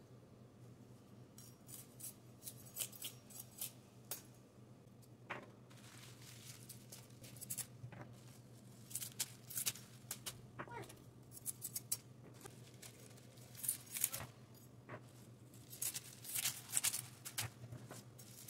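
Curly kale leaves being stripped and torn from their stems by hand and dropped into a stainless steel mesh strainer: irregular crisp rustles and snaps, busier in the second half, over a low steady hum.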